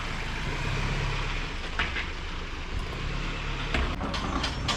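Pickup truck engine running at low revs while reversing with a trailer in tow, with a few knocks near the middle and towards the end.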